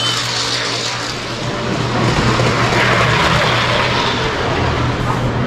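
Model train running along its overhead track, a steady rumbling clatter that swells about two seconds in as the cars pass close.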